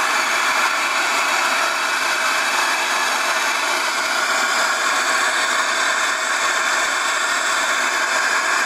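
Shop vacuum dust extractor and bench grinder running together, a steady loud rushing noise with a faint whine, while a knife blade is polished on the spinning buffing wheel.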